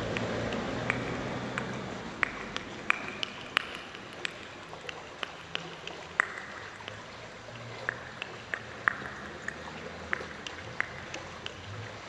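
Small stream trickling: a steady rush of water with many irregular plinks and drips.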